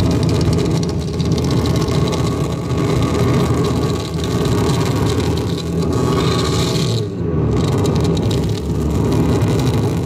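Live noise-music set played from an electronics table through a PA: a loud, dense, unbroken wall of noise, heaviest in the low end, with the top end dropping out briefly a little past halfway.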